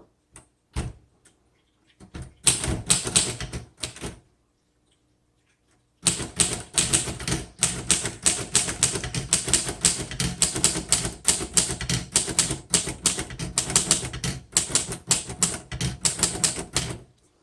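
1936 Royal Model O manual portable typewriter being typed on. First a few scattered keystrokes, then a short run of typing, a pause of about two seconds, and then a long, fast, even run of keystrikes until near the end.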